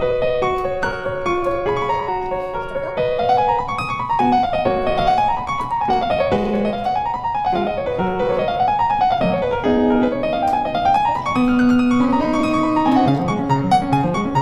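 Background piano music, with runs of notes rising and falling over and over through the middle.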